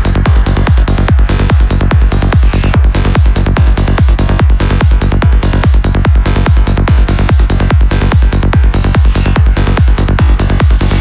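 Progressive psytrance track: a steady four-on-the-floor kick drum, a little over two beats a second, under a bassline and synth layers.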